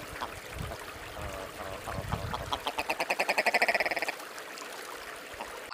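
Male willow ptarmigan calling: a rapid rattling run of stuttering notes that builds in loudness and breaks off about four seconds in.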